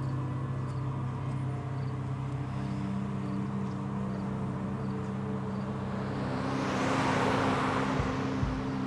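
Film score of sustained chords, with a whoosh that swells and fades about seven seconds in, then a low pulsing beat starting near the end.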